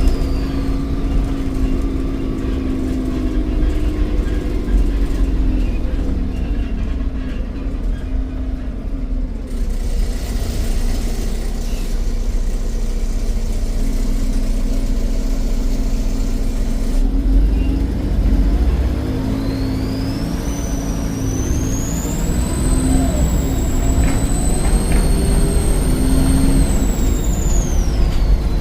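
Volvo D7E 7.1-litre diesel engine of a Volvo B7RLE bus running, with the turbocharger's high whistle rising steeply about twenty seconds in as the engine comes under load, holding high for several seconds, then falling away near the end.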